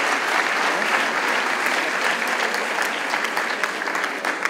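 Audience applauding, a dense mass of clapping that slowly begins to die down near the end.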